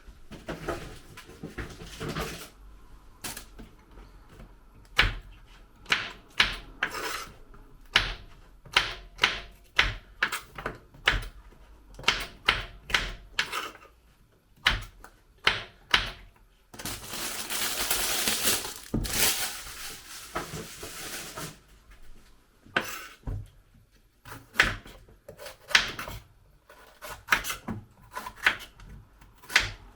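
Kitchen knife chopping vegetables on a chopping board: many sharp knocks at an uneven pace. About two-thirds of the way through, a few seconds of steady rustling noise cut across the knocks.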